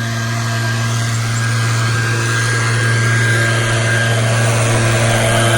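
Gas leaf blower engine running steadily at a constant speed, growing gradually louder.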